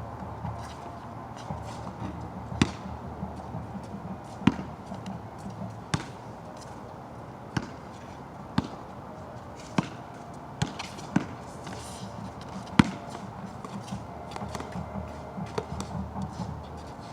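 Basketball bouncing on a wet court: about nine sharp, irregular bounces over a steady low background rumble.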